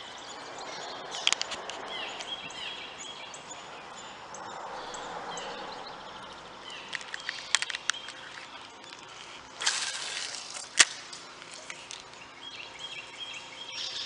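Outdoor ambience with small birds chirping faintly, broken by scattered clicks, a short rush of noise about ten seconds in and a single sharp click right after it, the loudest moment.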